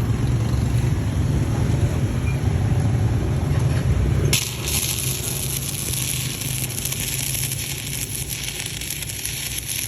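A low steady hum cuts off abruptly about four seconds in. It is followed by the crackling, sizzling arc of stick welding with a 3.2 mm electrode.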